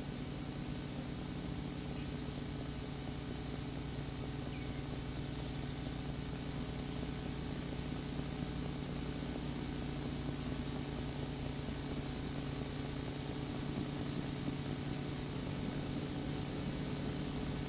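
Steady hiss with a low electrical hum and a faint high whine, unchanging throughout: the background noise of an old broadcast or tape recording, with no distinct event.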